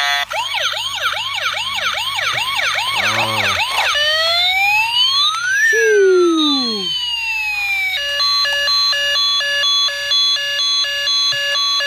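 Battery-powered toy police car playing its electronic siren sounds, cycling through patterns. First comes a fast yelp of rising sweeps, about three a second. Then slower crossing wails with one falling laser-like zap, and about 8 s in, a stepped beeping tone pattern.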